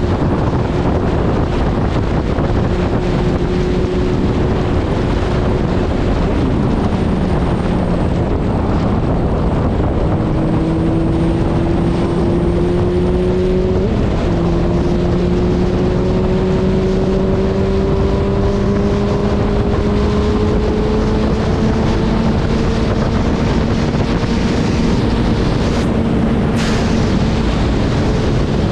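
Suzuki Hayabusa's inline-four engine running at highway speed under heavy wind noise on the microphone. Its pitch drops about six seconds in, then climbs slowly through most of the rest.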